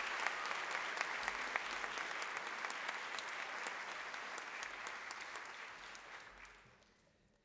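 Audience applauding, many hands clapping steadily, then fading away over the last two seconds or so.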